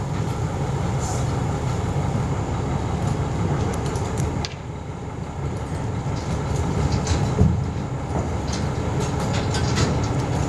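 A crane's engine running steadily, a low rumble, as it hoists and lowers a steeple, with occasional light clicks and knocks over it.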